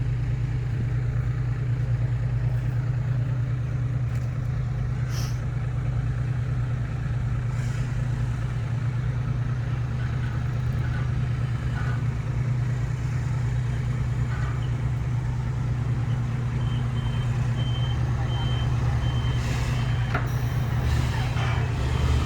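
Loaded dump truck's diesel engine running steadily at a low hum. Near the end its reversing alarm beeps in a short run of evenly spaced high beeps.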